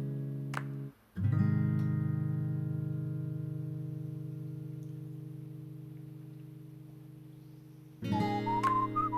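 Background music: acoustic guitar strumming a chord that rings out and slowly fades for several seconds, then strumming again with a whistled melody near the end.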